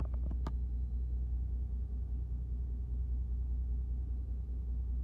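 Steady low rumble of the fishing boat's engine running at idle, with a few faint clicks in the first half second.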